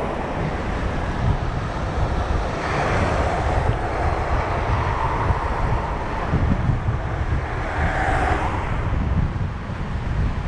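Wind buffeting the microphone of a moving e-bike, a steady low rumble, with the noise swelling twice, about three seconds in and again near eight seconds.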